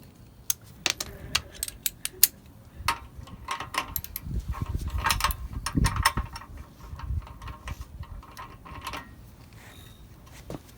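Hand tools and metal parts clicking and clinking irregularly while the stock exhaust is unbolted from a motorcycle, with a busier stretch of handling noise in the middle.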